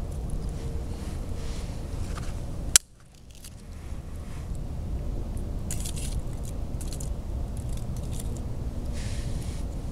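Small sticks of dry kindling being laid by hand onto a young campfire: light scrapes and crackles of wood. One sharp snap comes about three seconds in, over a steady low rumble.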